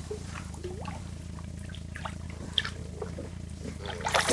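Lake water dripping and trickling with small splashes against the side of a boat as a hand holds a fish in the water, ending in a bigger splash.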